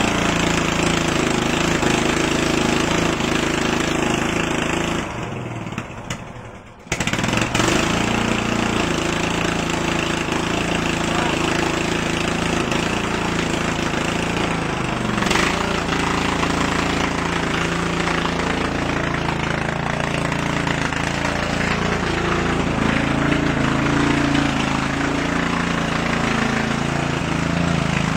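Murray lawn tractor's 14.5 hp Briggs & Stratton overhead-valve I/C engine running, very loud. The sound drops away for about a second and a half some five seconds in, then comes back abruptly.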